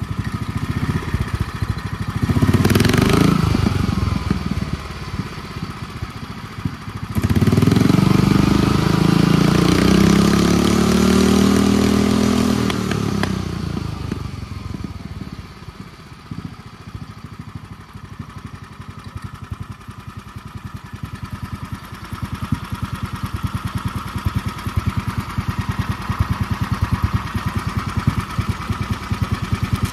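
Predator 459 single-cylinder go-kart engine idling, blipped up briefly about two seconds in, then revved and held for about six seconds with its pitch rising and falling before it drops back to a steady idle. The revs are there to make the 780 series torque converter engage and shift.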